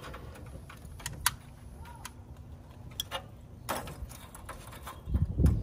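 Scattered sharp clicks and clinks of Royal Oak hardwood lump charcoal pieces knocking together as they are shifted by hand in the grill's charcoal bed, with a brief low rumble near the end.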